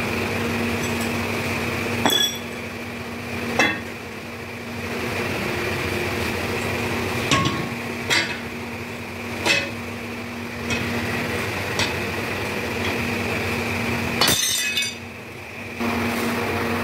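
Sharp metal-on-metal clinks, about six or seven spread through the stretch, from hand ladles and steel mold boxes during the hand-pouring of molten iron into sand molds. A steady machine hum lies underneath and drops out briefly near the end.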